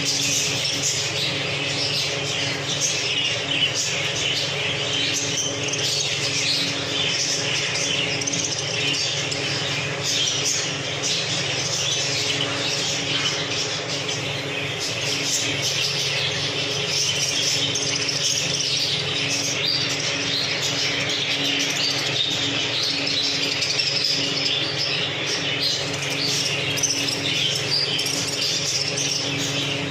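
A flock of caged budgerigars chattering and chirping continuously, over a steady low hum.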